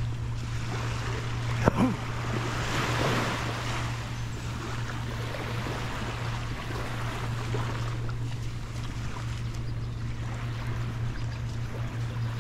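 Waves washing on a sandy beach, swelling for a couple of seconds early on, over a steady low hum. A short sharp thump comes about one and a half seconds in.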